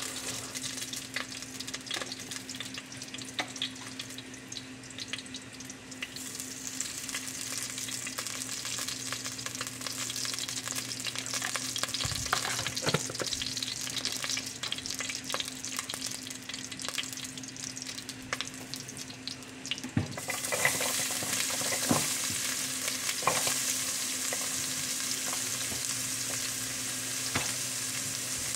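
Palm oil crackling and sizzling in a hot nonstick pot, with a spoon stirring and clicking against the pot. About twenty seconds in, the sizzle grows louder and hissier as chopped red onions go into the oil.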